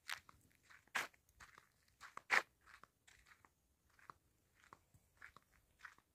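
Faint footsteps crunching on dry, gritty dirt ground, an irregular run of short scuffs several a second, with one louder step a little past two seconds in.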